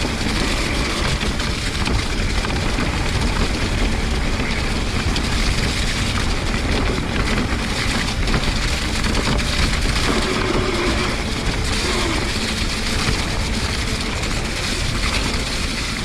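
Electric mountain bike descending a wet, muddy trail: a steady rush of wind and tyre noise.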